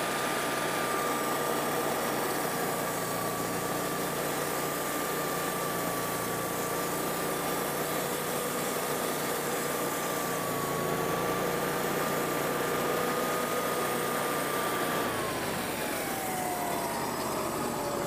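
Wood-Mizer portable band sawmill with its Kohler engine running steadily at an even pitch while the band blade saws through a rotten black walnut log. About three seconds before the end, the pitch slides down as the mill slows.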